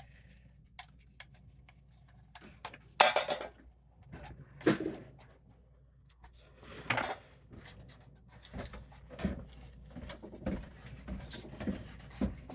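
Metal clanks and clinks of tools working on a water heater's gas control valve: a series of separate knocks, the loudest about three seconds in.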